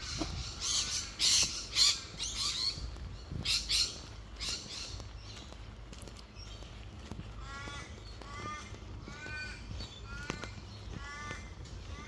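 Birds calling: several loud, harsh calls in the first few seconds, then a run of about six repeated calls, each falling slightly in pitch, about a second apart.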